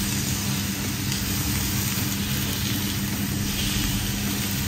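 Kitchen range hood fan humming steadily over steaks sizzling in a frying pan.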